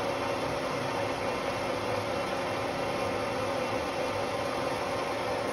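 Metal lathe running steadily, a constant hum with a steady tone, as a carbide insert turns down the copper bars of a worn, grooved electric motor commutator.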